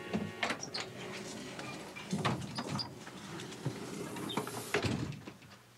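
Irregular clicks and knocks of a door being opened and someone stepping in with a carrying case: latch, footsteps and bumps. The sounds thin out near the end.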